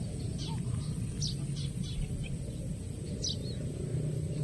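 Small birds chirping, a scattered series of short high notes, over a steady low rumble of outdoor background noise.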